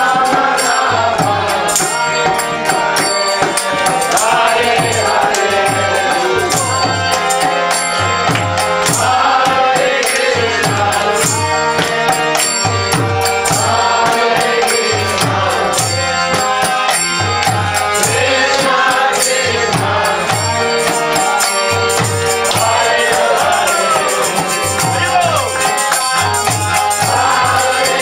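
Devotional kirtan: a group of voices chanting a mantra together, over jingling hand percussion and a low, steadily repeating beat.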